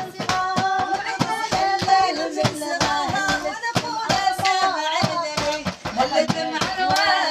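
Instrumental break in a Moroccan praise song for the Prophet: a melody on a pitched instrument over a steady beat of hand percussion, between sung verses.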